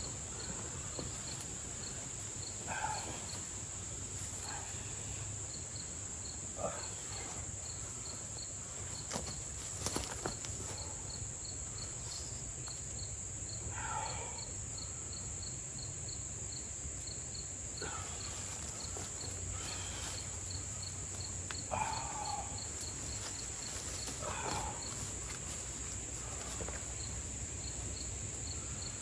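Steady high-pitched insect chorus, with a faint chirp repeating a few times a second. Short animal calls break in every few seconds, and a couple of sharp knocks come about ten seconds in.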